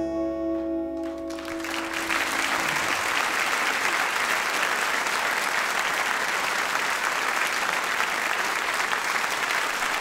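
The song's last acoustic guitar chord rings out and fades over the first second or two, as audience applause starts about a second in and carries on steadily.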